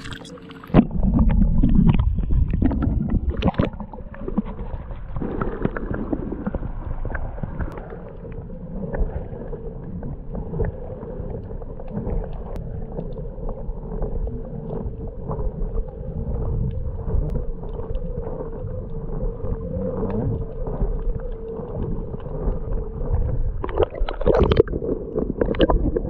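Water sloshing and rumbling, muffled and heard through a submerged camera microphone, as a large snook is held in the water and moved back and forth to revive it. It grows loud suddenly about a second in, over a steady hum.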